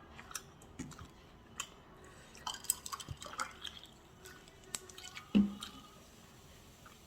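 Close-up eating sounds: crisp bites and chewing of boneless fried chicken, with a run of small crackles and clicks and one duller thump a little over five seconds in.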